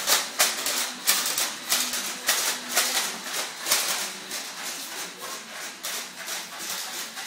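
Rapid, irregular clatter of sharp clicks and taps, several a second, from running feet and plastic Nerf blasters being handled and fired on a hard floor.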